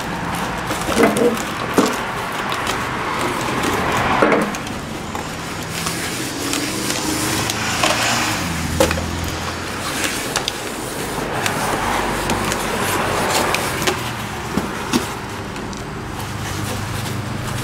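A cloth rag rubbing over a new cast-iron brake drum, wiping off the packaging grease with wax and grease remover, with scattered light knocks as the drum is handled.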